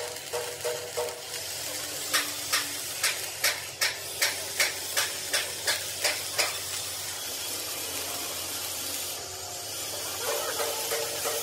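Hammer blows on steel: about a dozen sharp strikes at roughly three a second, then they stop, over a steady hiss.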